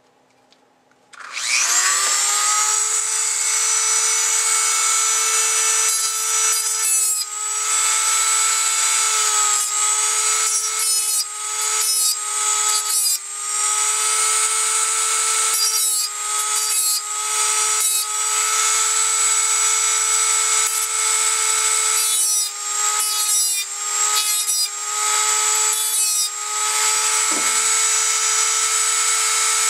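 Handheld rotary tool with a small abrasive cutoff wheel switching on about a second in and spinning up to a steady high whine, then grinding in short, light strokes against the steel teeth of a bow saw blade to sharpen them, its pitch dipping briefly as the wheel bites.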